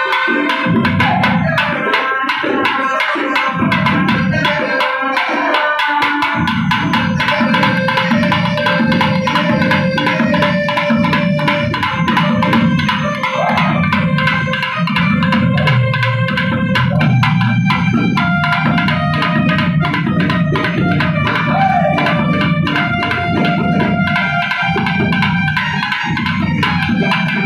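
Thavil barrel drums played fast in a naiyandi melam rhythm, dense unbroken strokes of stick and fingers, with a held pitched melody line sounding over the drumming.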